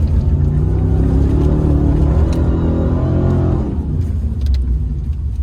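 High-powered vehicle engine accelerating hard, its pitch climbing for about three and a half seconds, then easing off to a lower rumble.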